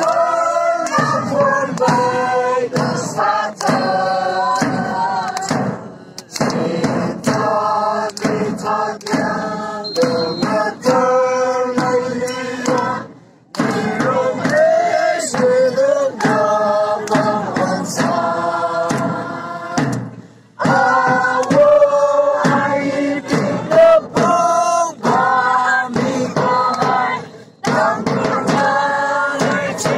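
A crowd singing together in unison over the steady beats of a large drum and hand claps. The singing stops briefly about every seven seconds between phrases.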